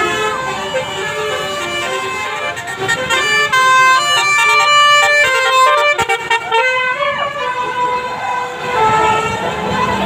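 Bus 'telolet' musical air horn (Basuri type) playing a quick tune of stepped notes, several tones sounding together, for about seven seconds. Near the end the coach goes by with a low rumble.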